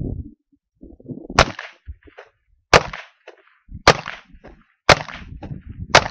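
Five shots from a Savage 64F semi-automatic .22 LR rifle, fired at about one a second, each a sharp crack followed by a brief echo.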